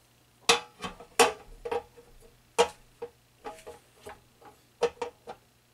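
Metal wire pot-support grate of a single-burner propane stove clinking and tapping against the stove top as it is set in place: a series of sharp metallic clinks, some with a short ring, the loudest about half a second, a second, two and a half seconds and five seconds in.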